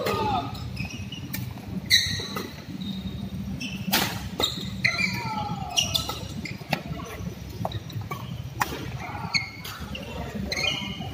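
Badminton rally: sharp racket strikes on the shuttlecock every few seconds, with voices in the background.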